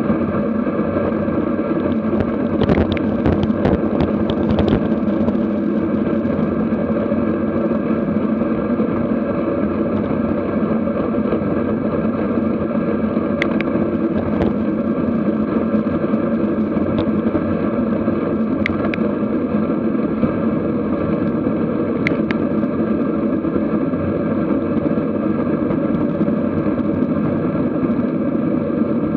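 Steady wind and road rush on a bicycle-mounted camera riding at around 40 km/h, with a few brief sharp clicks along the way.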